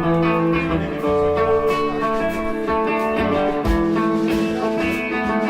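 Live band music with guitar playing an instrumental passage, with no singing.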